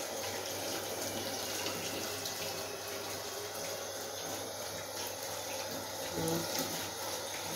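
Kitchen tap running steadily into the sink while hands are rinsed under the stream, washing off kneaded dough.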